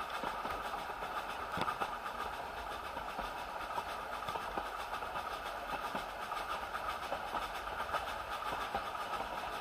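Isle of Man Steam Railway narrow-gauge passenger carriage running along the track, heard from inside the carriage: a steady rattling wheel-on-rail running noise with irregular sharp clicks and knocks.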